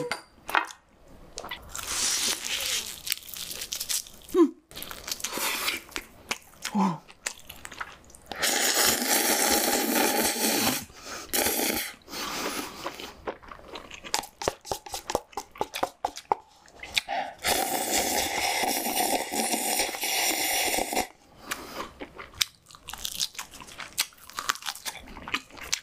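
Close-miked eating: crisp bites and crunching into crispy roasted meat, with chewing between, and two long spells of dense crackly noise about a third and two-thirds of the way through.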